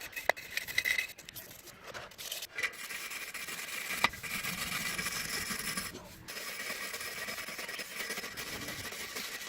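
Steady abrasive rubbing and scraping, typical of rust being worked off old fan parts by hand, with a sharp click about four seconds in.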